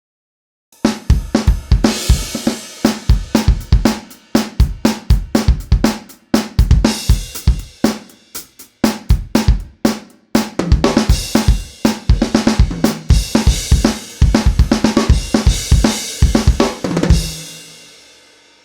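Sampled drum kit from Steinberg's Groove Agent 5 virtual drummer playing a pattern of kick, snare, hi-hat and cymbals, starting about a second in with a few short breaks, then stopping shortly before the end and leaving a cymbal ringing out.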